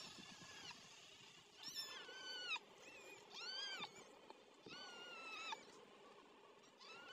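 Newborn kittens mewing: a series of about five short, high-pitched cries, each rising and then falling in pitch.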